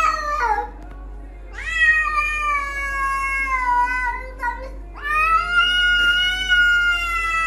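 Cat meowing in long, drawn-out calls: a short falling one that ends about half a second in, then a call of about three seconds that rises and slowly sinks, and another long call starting about five seconds in.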